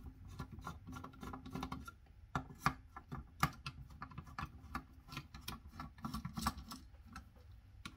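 Small screwdriver working the screws that hold a CPU cooler fan to its heatsink: irregular light clicks and scrapes of metal on screw heads and the plastic fan frame.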